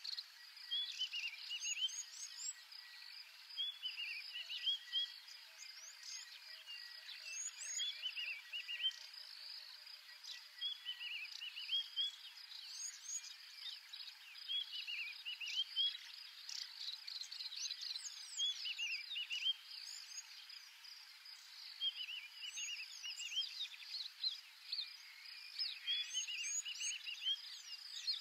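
Wild outdoor ambience: a steady high insect drone with short bursts of chirping calls about every three to four seconds.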